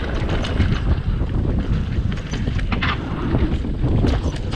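Mountain bike rolling fast down a rough dirt trail: wind buffeting the action camera's microphone over a heavy rumble, with sharp rattles and clacks of the bike over bumps throughout and a louder burst of rattling near the middle.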